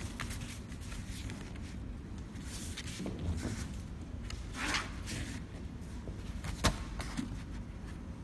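Cardboard boxes being handled: a few brief rustles and scrapes against the cardboard, and one sharp knock near the end, over a low steady background rumble.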